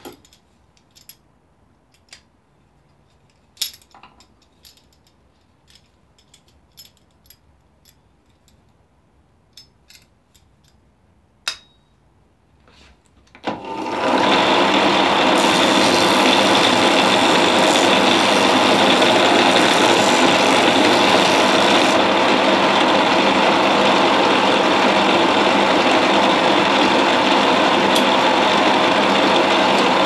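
Scattered light clicks and taps of small pieces being handled. About 13 seconds in, a bench belt-and-disc sander is switched on and its motor runs steadily and loudly.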